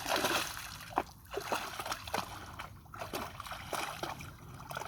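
A dog swimming in lake water: irregular splashing and sloshing, loudest right at the start, with scattered sharper splashes after.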